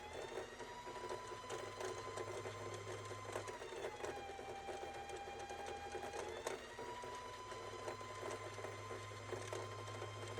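Singer Heavy Duty 4423 sewing machine running at speed to wind a bobbin, a steady motor whine. It slows to a lower pitch about three and a half seconds in and speeds back up about three seconds later.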